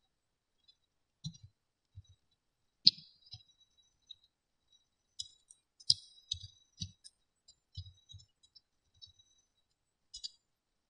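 Computer keyboard keys being typed slowly and unevenly: scattered single key clicks, each with a soft low thud.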